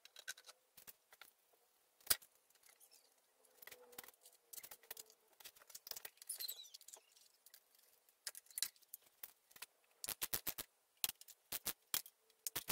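Socket ratchet clicking faintly as the intake manifold fasteners are run down: scattered clicks and light knocks at first, then from about ten seconds in quick runs of several clicks a second.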